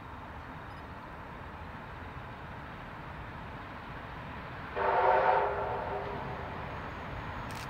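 A distant train's horn sounds one chord-like blast of about a second, about five seconds in, over a faint steady background.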